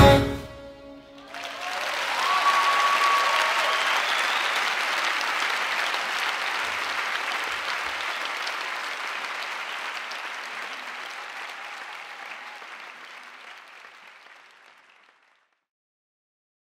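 Audience applauding after the music stops, starting about a second in, then fading out gradually.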